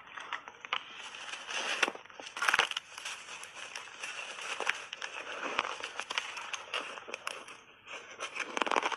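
Close-miked crunching and chewing of big bites of frozen shaved ice coated in milk powder: irregular crunches, loudest about two and a half seconds in and again near the end.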